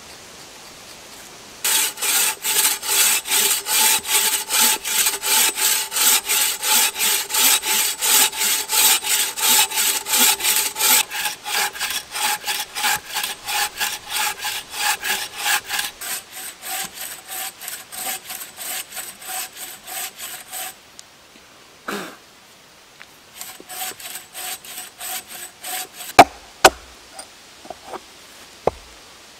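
Bow saw cutting a birch log in rapid, even push-pull strokes, about two to three a second, stopping after roughly twenty seconds. A short spell of lighter sawing follows, then a few sharp knocks of a tool striking wood to split a birch round.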